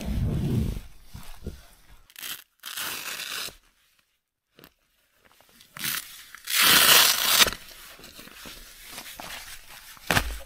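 Rustling and crinkling of nylon tent fabric and a down jacket as a person moves about and handles gear inside a small tent. The sound comes in irregular bursts, pauses about four seconds in, and rises to its loudest crinkle about seven seconds in.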